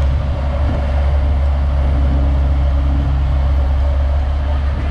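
Heavy construction-machine diesel engine running steadily with a deep, even drone.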